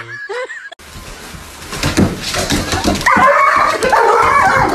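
A dog making high, wavering cries from about three seconds in, after a stretch of rustling and knocks.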